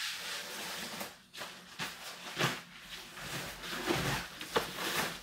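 Synthetic raincoat fabric rustling and swishing as it is handled, with a few sharper crinkles about two and a half, four and four and a half seconds in.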